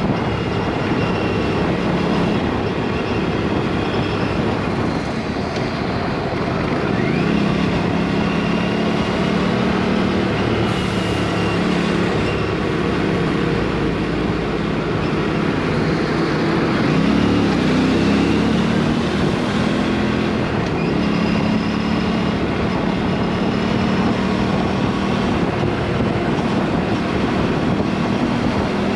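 Aprilia superbike's exhaust, its dB killer removed, running continuously while riding, the engine note rising and falling a few times with the throttle.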